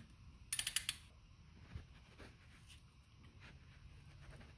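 Ratchet of a click-type torque wrench clicking in a quick run about half a second in, as the wrench is swung back on an oil drain bolt, then a few faint ticks.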